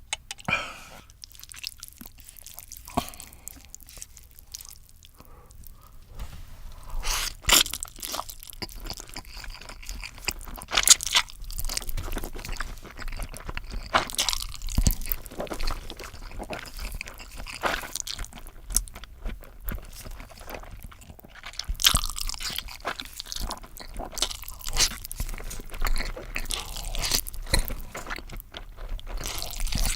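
A person eating close to the microphone: crisp crunching bites and chewing in irregular crackles, sparse at first and coming thick and fast from about a quarter of the way in.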